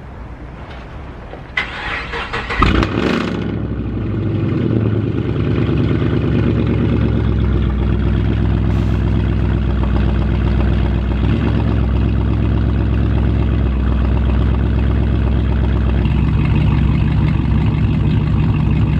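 Chevrolet Camaro 2SS's 6.2-litre V8 starting up: a sudden burst as it cranks and catches about two seconds in, then a steady idle.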